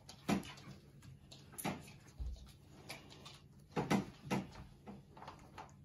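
Havanese puppies giving short, scattered yelps and whimpers, with a dull bump about two seconds in.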